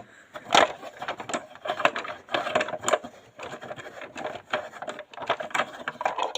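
Hard plastic parts of a toy garbage truck set clicking, knocking and rattling as they are handled and worked apart, a quick irregular string of small clicks that cuts off suddenly at the end.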